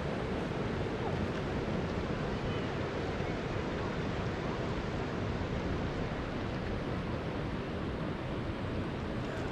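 Steady rush of flowing river water, the Virgin River running alongside the trail.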